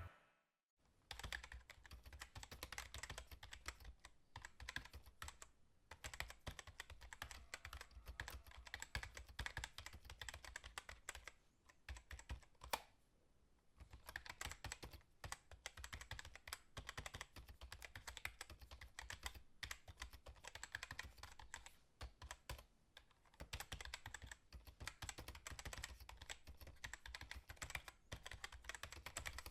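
Faint typing on a computer keyboard: rapid, steady key clicks with a couple of short pauses.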